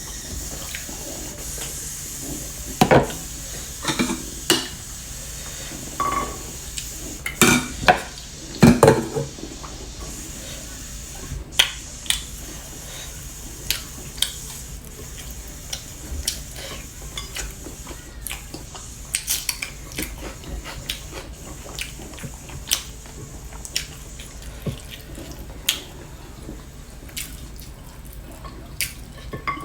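Eating sounds from a meal of rice, dal and vegetable curry: scattered clinks and taps on a plate as the food is mixed and eaten, loudest in a cluster a few seconds in.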